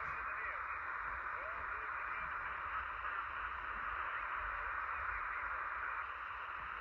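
Steady AM radio static hiss from a software-defined receiver tuned to 26.085 MHz in the CB freeband, heard through a narrow audio passband, with faint traces of a weak transmission under the noise.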